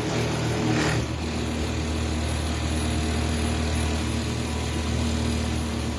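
Wood lathe running with a steady motor hum. For about the first second a rougher hiss of a tool cutting the spinning wood rides on top, then stops, leaving the lathe running alone.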